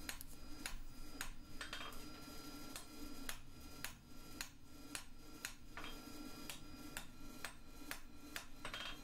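Hand hammer striking a hot, tapered steel bar on the anvil face to flatten it: an even run of blows, about three a second, each with a faint metallic ring.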